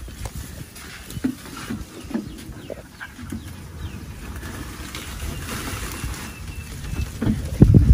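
Low wind rumble on the microphone with scattered soft knocks and handling noises. A couple of heavier thumps come near the end.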